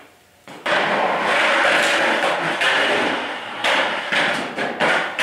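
Skateboard wheels rolling on a concrete garage floor, a loud continuous grinding rumble that sets in about half a second in, with several sharp knocks of the wooden board near the end.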